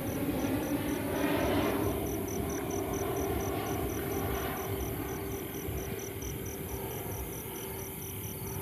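Crickets chirping steadily, about five high chirps a second, over the low rumble of a distant aircraft. A broader rushing noise fades away about two seconds in.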